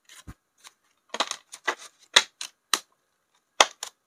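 A stack of paper rupiah banknotes being handled, crackling and snapping in a quick irregular series as the notes are shuffled and gathered. There is a soft knock about a third of a second in and another near the end, as the stack touches the table.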